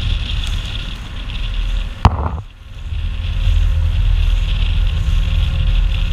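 Wind buffeting the microphone on a moving outrigger boat, over the steady running of the boat's engine and the rush of water. About two seconds in there is one sharp click, and the sound dips briefly before the wind and engine noise return.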